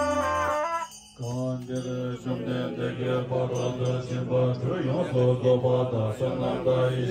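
Tibetan Buddhist monks' gyaling horns end a wavering held note just under a second in. After a brief pause, the monks begin chanting together from their texts on a low, steady pitch.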